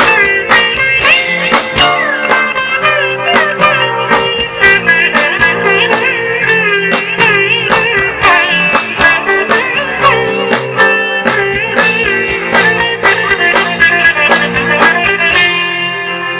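Live rock-fusion band playing: a lead line of bending, wavering notes over drums, bass and guitar, easing off slightly near the end.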